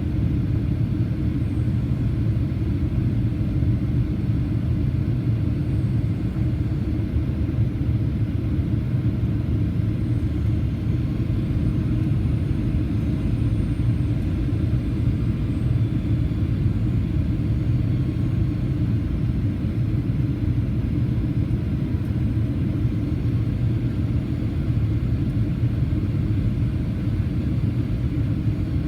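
Steady low rumble of cabin noise inside a Boeing 737-800 in flight: airflow over the fuselage and the engines, even and unchanging.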